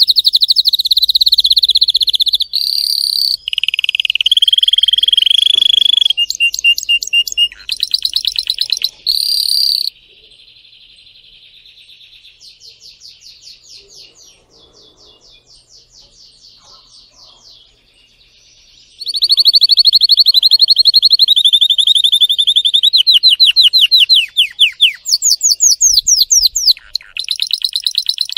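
Domestic canary singing: fast trills and rolling runs of rapidly repeated high notes. The song drops much quieter about a third of the way in and comes back loud about two-thirds of the way through.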